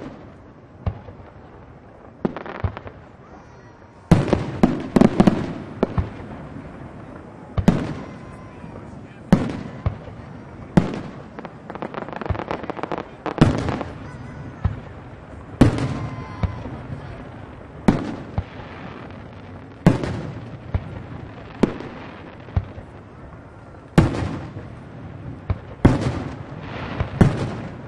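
Aerial firework shells bursting: a few scattered bangs at first, then from about four seconds in a steady succession of loud bangs, about one every one and a half to two seconds, each trailing off in an echo.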